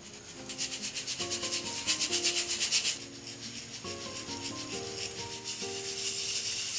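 Rhythmic scraping strokes, about six a second and loudest from about a second to three seconds in, over soft melodic background music.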